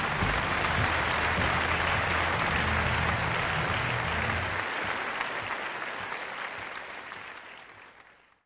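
Applause, with low sustained music notes underneath that stop about halfway through, then the applause fades out.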